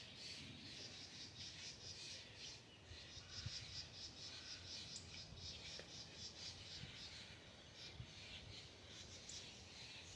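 Faint outdoor chirping: a rapid, even trill of high chirps, several a second, that goes on throughout, with a couple of faint low thumps.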